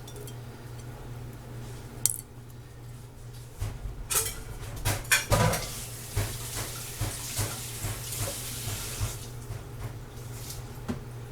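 Kitchen clatter of a pot and utensils as chopped carrot, celery and onion go into the soup: a knock about two seconds in, a run of clinks and knocks in the middle, then a few seconds of hiss and lighter clinks, over a steady low hum.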